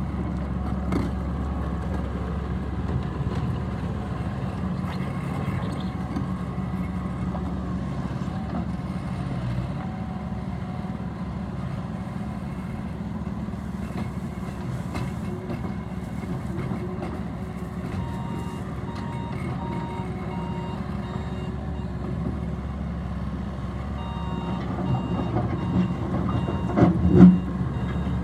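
Bobcat T450 loader's diesel engine running steadily, with its backup alarm beeping in a steady on-off pattern, the sign that it is reversing, from about two-thirds of the way in. A loud knock comes near the end.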